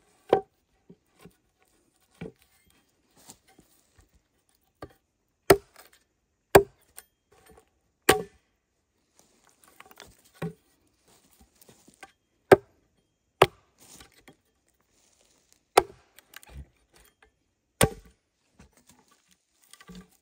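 Axe chopping wood: about a dozen sharp blows at uneven intervals of one to two and a half seconds.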